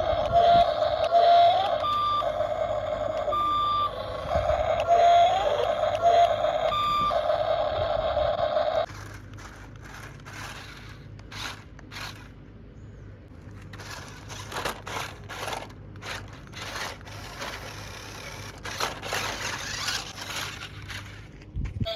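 Electronic beeping, from the sound module of a remote-controlled construction machine, with short repeated tones for about the first nine seconds. Then it drops to quieter irregular clicks and scraping.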